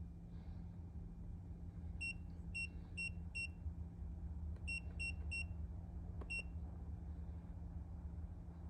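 Handheld automotive scan tool beeping at key presses while paging through its menus to the airbag module: eight short high beeps, four quick ones, then three, then a single one, over a steady low hum.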